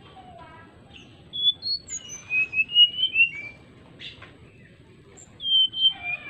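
Brown-chested jungle flycatcher singing in clear, flute-like whistled phrases of sliding notes. One phrase starts about a second and a half in, and a second follows near the end after a short pause.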